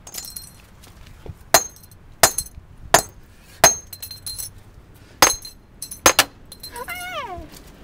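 Claw hammer smashing a small object on asphalt: about seven sharp clinking blows roughly a second apart, the last two almost together. Near the end, a short vocal sound slides down in pitch.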